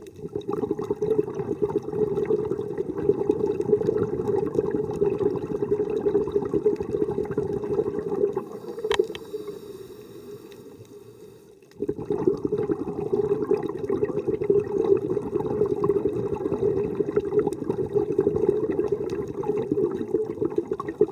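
Muffled underwater bubbling from a scuba diver's regulator. It fades about eight seconds in and starts again abruptly about halfway through.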